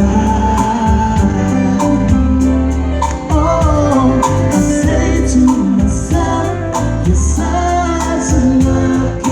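Music: a band playing with bass, drums and singing.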